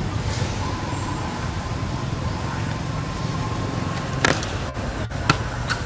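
Steady low outdoor rumble like distant road traffic, with a faint steady whine in the first few seconds and several sharp clicks starting about four seconds in.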